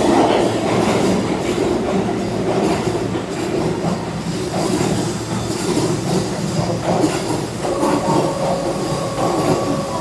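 Keihan electric commuter train running along the platform, wheels clattering over the rails. About eight seconds in, a steady whine joins the running noise.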